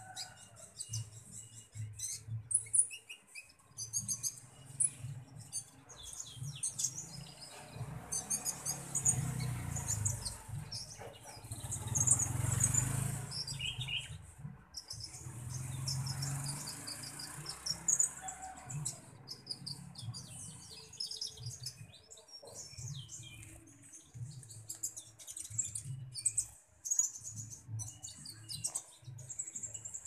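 Konin ijoan, a small caged songbird, giving rapid high-pitched chirps again and again, with fluttering wings and low rumbling bumps in between.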